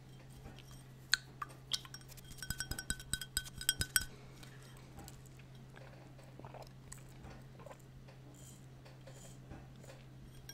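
Quick taps on a drinking glass held close to the microphone, each with a short bright ring, for about three seconds, then only faint soft clicks. A steady low hum runs underneath.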